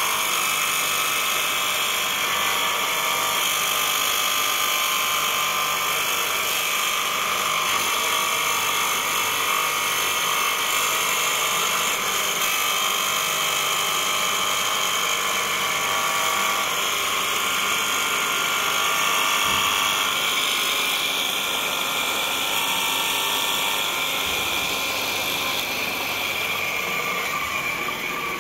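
Surface grinder's abrasive wheel grinding a metal block and throwing sparks: a steady, high-pitched grinding hiss over the machine's running motor, easing a little near the end.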